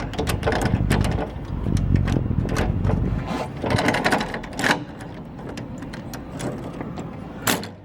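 Small metal parts of a push bar door latch mechanism clicking and scraping as a part is worked out of it by hand. A low rumble runs through the first half, and there is one sharp, loud click near the end.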